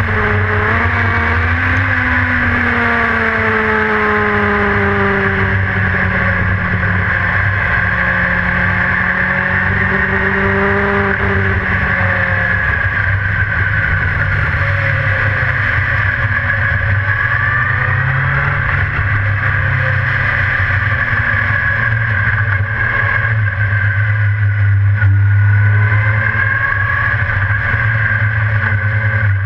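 A dirt-track race car's engine heard from inside its cockpit, running steadily at speed. Its pitch sinks slowly over the first dozen seconds, climbs again a little past the middle, and then holds a strong low drone.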